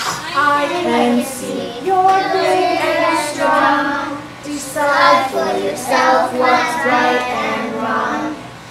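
A child singing, with musical accompaniment.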